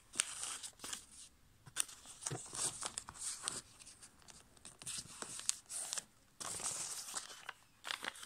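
A sheet of A5 copy paper being folded by hand into a paper airplane: irregular rustling and crinkling, broken by sharp crackles as fingers press and crease the folds flat.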